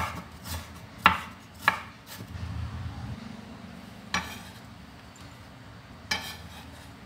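A kitchen knife chopping young ginger into fine strips on a wooden cutting board: four sharp chops in the first two seconds. Then a soft rustle and two single knocks, about four and six seconds in.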